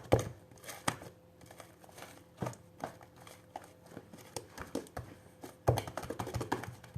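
Hands squishing and stretching fluffy slime: irregular sticky clicks and pops, with a denser run of them near the end.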